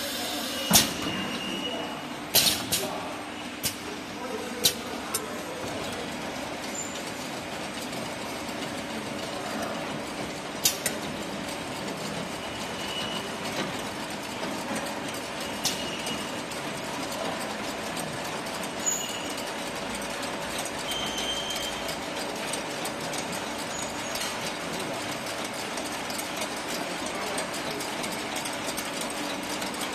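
Automatic oil-filling line running: a chain conveyor carrying metal oil tins, with a steady mechanical hum and rattle. Several sharp clacks come in the first five seconds and a few more later, with brief high squeaks now and then.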